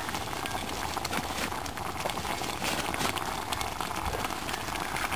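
Soup at a hard rolling boil in a stainless steel billy can on a spirit stove: a steady bubbling hiss dotted with many small pops. It is boiling too vigorously, with the burner at full flame and no simmer ring on.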